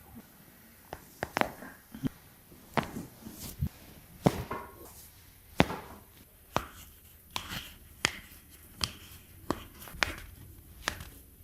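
Hands striking a body in a series of sharp taps, irregular at about one or two a second, with faint rubbing between.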